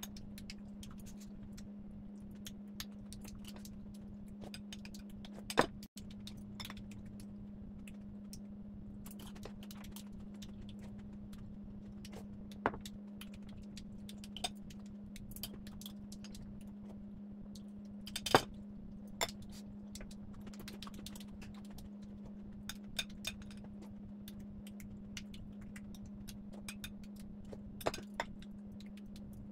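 Spoon and chopsticks clinking now and then against ceramic bowls during a meal, a few sharp clinks standing out among lighter taps, over a steady low hum.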